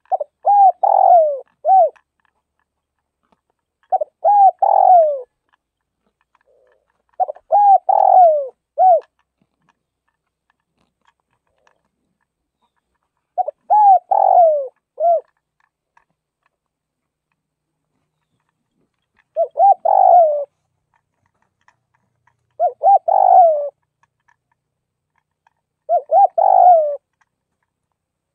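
Spotted dove cooing: seven phrases of three or four soft coos, each about one and a half seconds long and a few seconds apart, with a short separate note closing most phrases.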